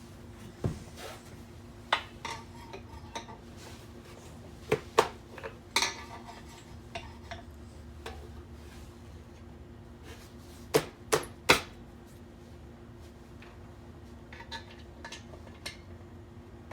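Metal parts and tools clinking and knocking as they are handled during work, in scattered groups, with three sharp knocks close together about two-thirds of the way through. A steady low hum runs underneath.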